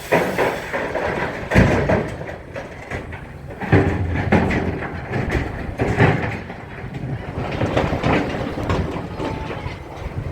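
Demolition of an old house: a continuous low rumble with irregular heavy crashes and clattering, as of falling debris. The loudest crashes come about 1.5, 4 and 6 seconds in.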